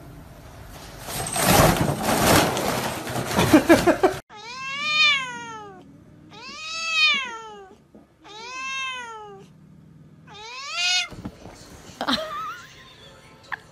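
Domestic cat meowing: four long meows, each rising then falling in pitch, about two seconds apart. They follow about four seconds of loud crackling noise that cuts off suddenly.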